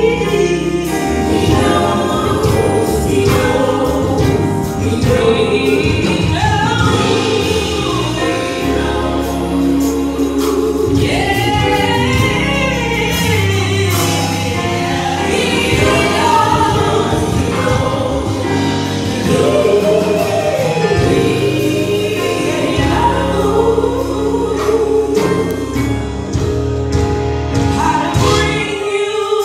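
Female gospel vocal group singing a gospel song together into microphones, over instrumental accompaniment.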